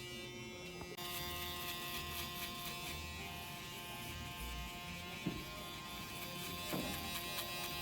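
Electric hair clippers running with a steady buzz, which becomes louder about a second in.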